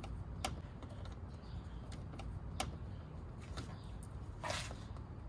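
Plastic push-type retainer clips on a Mazda CX-3's under-hood cover panel being pushed in and popped up: a few sharp, separate plastic clicks, with a short scraping pull near the end.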